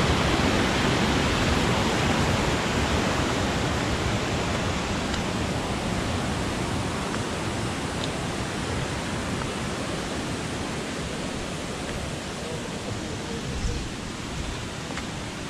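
Water rushing over small rock cascades in a stream, a steady even rush that fades gradually. A brief low thump comes near the end.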